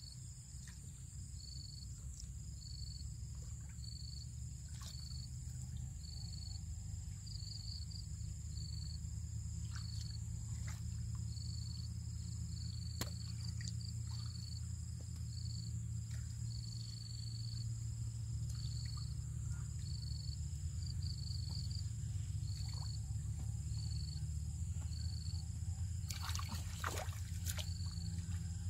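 Hands groping in shallow muddy water, with soft sloshing and small splashes that come more thickly near the end, over a steady low rumble. A faint high chirp repeats about once a second.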